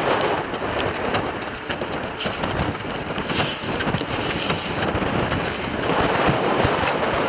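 Wind buffeting the microphone: a steady, loud rushing noise.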